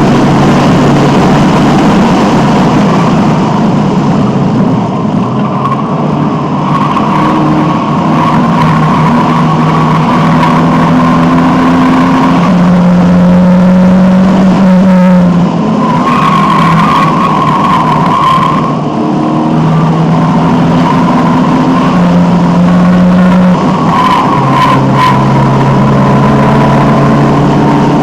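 Alfa Romeo 1750's twin-cam four-cylinder engine running hard at racing pace, heard from inside the car. The engine note holds and then changes pitch several times as the driver works through the gears.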